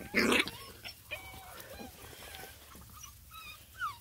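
Beagle puppies whimpering and yipping in short, high, squeaky calls that fall in pitch, coming more often near the end. A brief noisy burst comes at the very start.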